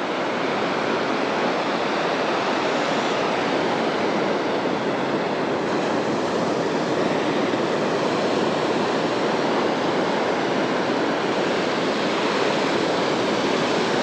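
Sea surf breaking on a beach: a steady, even rush of waves.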